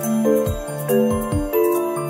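Background music: a light, chiming melody over held chords, with a soft low beat underneath.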